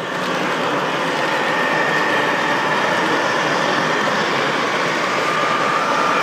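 Model railway train running along the layout track: a steady rolling rumble with a faint high motor whine, over the steady background noise of an exhibition hall.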